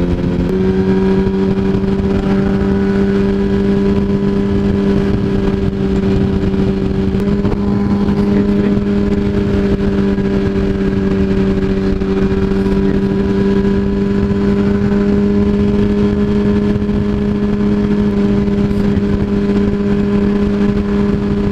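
2007 Yamaha R1's inline-four engine at a steady highway cruise, its pitch rising slightly about half a second in and then holding level, under constant wind rush on the microphone.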